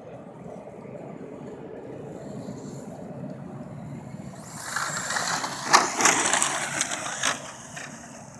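Traxxas Slash 4x4 radio-controlled truck driving on a dirt track, a low steady run of motor and tyre noise. About four and a half seconds in, a much louder rush with sharp crackles lasts about three seconds, then dies back down.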